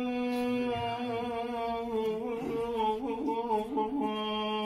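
Unaccompanied male voice singing maqam Saba: one long held note, ornamented with quick wavering turns in the middle before settling back onto the steady note.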